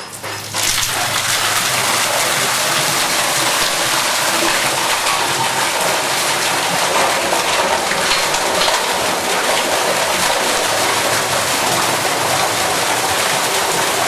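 Water gushing from a pipe outlet and splashing into a concrete tank, a steady loud rushing that starts about half a second in.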